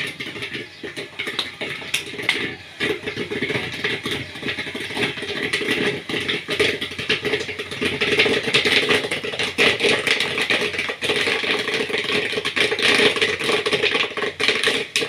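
Corn kernels popping in the kettle of a 12-volt popcorn machine: a dense, irregular crackle of pops that grows thicker about halfway through as the batch comes to full popping.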